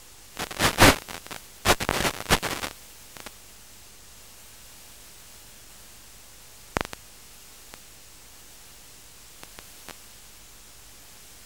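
Steady hiss of static from an analog FPV video receiver's audio channel, which carries no sound of its own. A burst of loud crackling starts about half a second in and lasts about two seconds, and a single sharp crackle comes near seven seconds.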